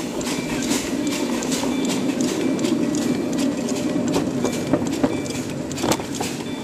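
Little Engines 2-6-0 live steam locomotive, 7.5-inch gauge, chuffing along in a steady beat of exhaust puffs over the rumble of its wheels on the track, with a few sharp clicks near the end.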